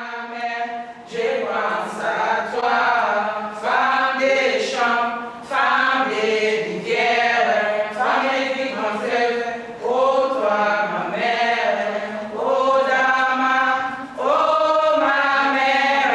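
A group of African women singing a song together, unaccompanied, in phrases of a second or two.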